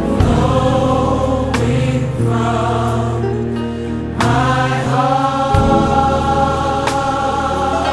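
Gospel worship song: a choir sings long held notes over instrumental backing.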